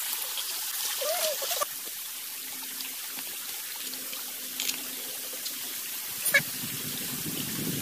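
Shallow stream water trickling. The sound changes abruptly about a second and a half in; a sharp click comes just after six seconds, and a louder, rougher noise sets in near the end.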